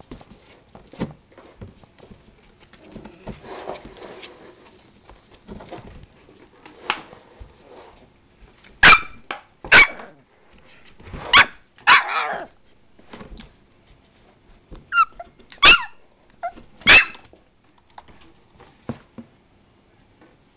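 Seven-week-old cairn terrier puppy barking in short, high-pitched yaps, a string of them coming loudest through the middle of the stretch after quieter sounds at first.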